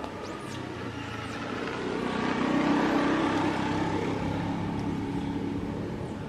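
A motor vehicle driving past: its engine and road noise swell to a peak about halfway through, then fade away.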